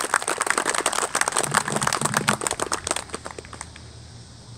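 Audience clapping, the applause thinning out and dying away about three seconds in.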